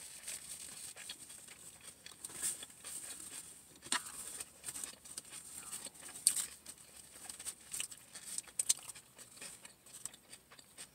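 Paper sandwich wrappers, a napkin and a paper bag being handled: scattered short crinkles and crackles, with soft chewing sounds between them.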